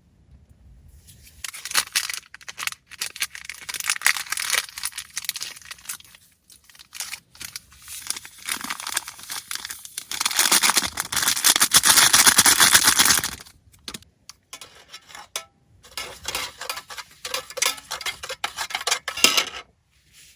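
Rustling and crinkling of material being handled, in several bursts with many small crackles. The longest and loudest burst comes about halfway through.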